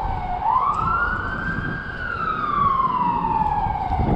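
Police car siren wailing: one slow rise and fall in pitch over about four seconds, starting to rise again at the very end, over a low rumble.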